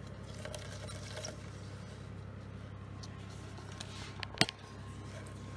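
Clear plastic tub handled on a stainless steel bench, with small scrapes and clicks, then one sharp knock a little past four seconds in as the tub goes down on a digital scale. A steady low hum runs underneath.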